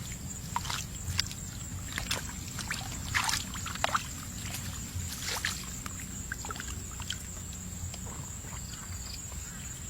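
Water and mud sloshing and splashing in short irregular bursts, mostly in the first half, over a steady high-pitched hum.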